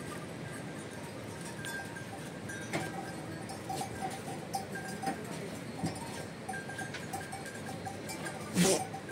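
Livestock bells on a grazing flock clinking irregularly, several small rings at the same couple of pitches. Near the end there is one short, louder noise.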